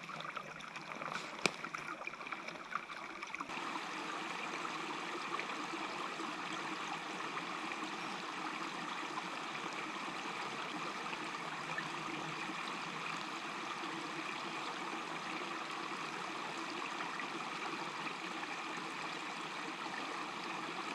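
Small mountain stream running over rocks, a steady rush of water that grows louder about three and a half seconds in, with a sharp click about a second and a half in.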